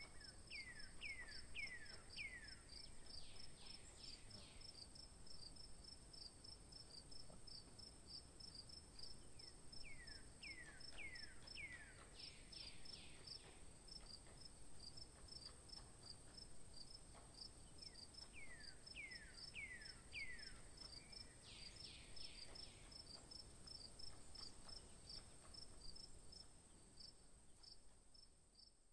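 Faint outdoor ambience of insects, one keeping up a steady high trill and another a fast, even chirping. Three times, about nine seconds apart, a songbird sings a phrase of four or five falling whistled notes followed by a quick run of notes.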